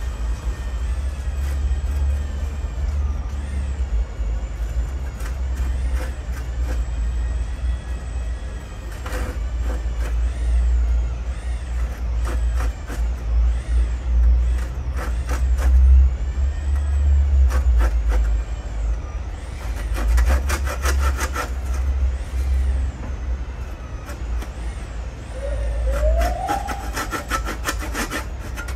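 Hand saw cutting through a wooden plank, trimming a thin sliver off its end. The strokes are slow at first, each with a rising-and-falling whine, then come in quicker runs about two-thirds of the way in and again near the end, over a steady low rumble.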